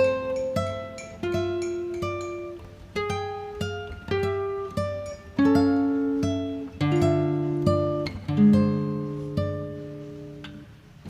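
Background music: an acoustic guitar plucking single notes and chords at a slow pace, each one ringing and fading. It grows quieter toward the end.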